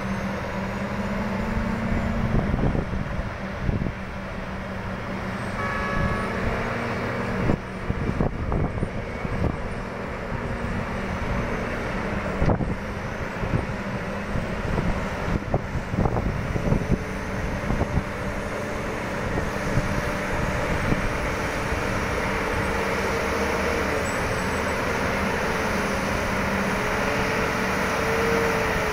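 Diesel engines of a Hitachi EX3600 mining excavator and Cat 785C haul trucks running steadily, with repeated knocks and clatters in the first half as the shovel dumps overburden into a haul truck's bed. The engine note rises in the second half as a loaded truck pulls away.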